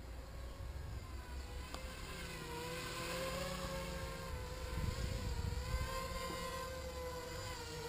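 HK 250 mini quadcopter's electric motors and propellers whirring, coming in about two seconds in and growing louder, the pitch wavering up and down as the throttle is worked.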